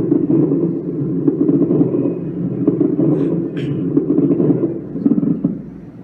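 Recorded lung sounds from an auscultation teaching recording: low-pitched, rough breath sounds that swell and fade with breathing, with a few brief clicks.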